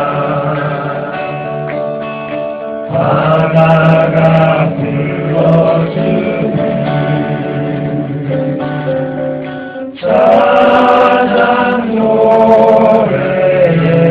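Live acoustic music: several voices singing together in harmony, with guitar accompaniment. New sung phrases come in about three seconds in and again about ten seconds in.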